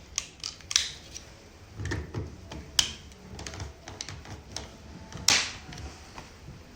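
Scattered plastic clicks and knocks of a cryolipolysis machine's working handles being handled, fitted into and pulled from their sockets, with one sharp click about three seconds in. A brief rushing noise comes a little after five seconds.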